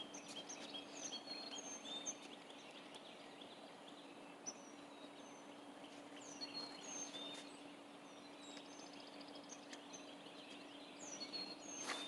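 Small birds chirping faintly, short high calls repeated throughout, with a quick trill about nine seconds in, over a steady low hum.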